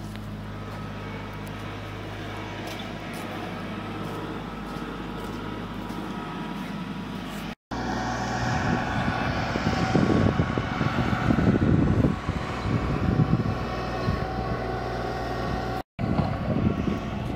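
A steady low engine drone, with wind buffeting the microphone in gusts through the later part; the sound breaks off abruptly twice.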